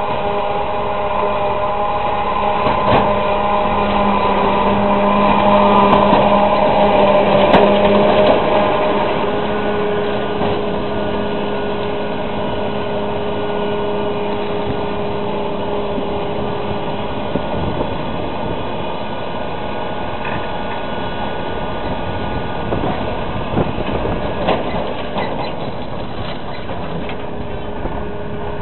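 Tractor engines under load and a tractor-drawn forage harvester chopping maize: a loud, steady mechanical drone with a few level engine tones, whose pitch shifts about a third of the way in.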